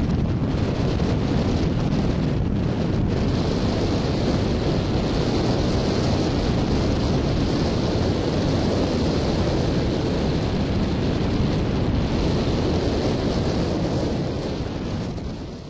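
Steady rushing wind buffeting the microphone of a camera mounted on a hang glider's wing in flight, the airflow of the glide itself. It fades out near the end.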